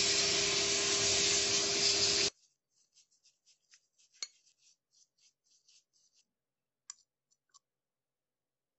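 Abrasive blaster hissing steadily against the metal lock body, cutting off suddenly about two seconds in. After that, faint brush strokes with a couple of light clicks.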